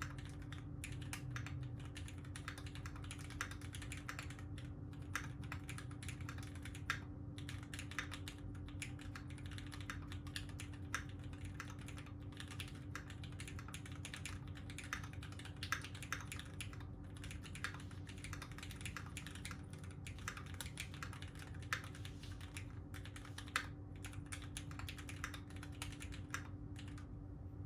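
Continuous fast typing on a Tofu 60 mechanical keyboard with lubed Gateron Yellow Milky Top linear switches in a 4 mm brass plate and GMK keycaps: a dense, irregular stream of key clacks with a few louder strokes. A steady low hum sits underneath.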